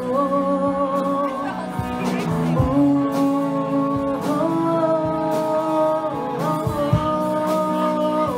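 Live rock band playing in a bar: a woman singing long held notes over electric guitars and a drum kit.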